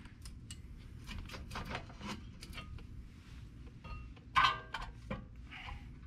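Small metallic clicks and clinks as a front brake caliper is lifted off the rotor and set up out of the way, with one louder, ringing metal clank about four and a half seconds in.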